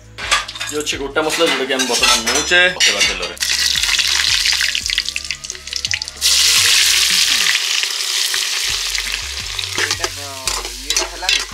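Hot oil in an aluminium pot sizzling, jumping suddenly loud about six seconds in as ingredients go into the oil, then slowly fading while a metal spoon stirs the pot.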